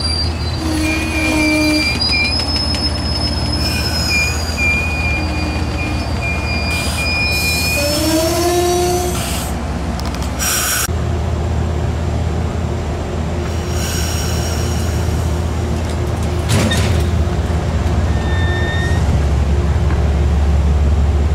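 Train wheels squealing against the rails: several steady high-pitched squeals, one rising in pitch about eight seconds in, over a low rumble. The squealing dies away about eleven seconds in, leaving a steady low rumble that gets louder near the end.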